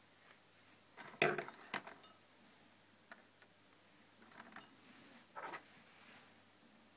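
Scattered handling clicks and knocks of small hard objects: the loudest two come a little over a second in, with softer clicks and rustling later.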